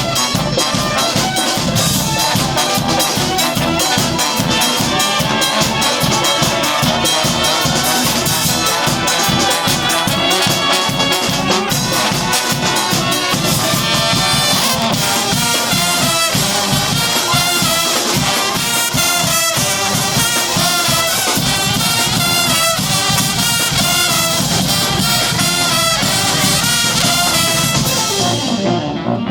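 A street brass band playing a lively tune live, with horns over a steady drumbeat. The cymbal-bright top end falls away just before the end as the tune closes.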